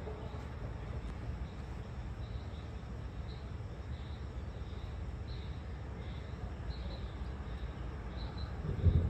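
Insects chirping in short high pulses about once a second, some doubled, over a steady low rumble. A louder low rumble swells briefly near the end.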